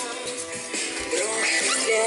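Background music: a song with sung vocals over guitar and a beat, growing louder about a second in.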